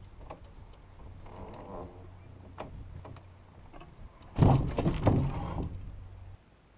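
Knocks and scrapes of a heavy log being shifted in a trailer, with one loud, heavy scraping thud about four and a half seconds in. A steady low hum runs underneath and stops abruptly near the end.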